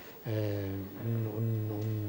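A man's drawn-out hesitation sound, a vowel held at one steady pitch for nearly two seconds, with a brief dip about a second in, as he searches for his next words.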